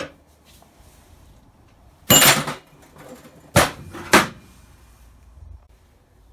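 Metal tools clanking and scraping on a steel workbench while a freshly cast boat anode is demoulded. A rattling scrape lasts about half a second, then two sharp clanks come about half a second apart.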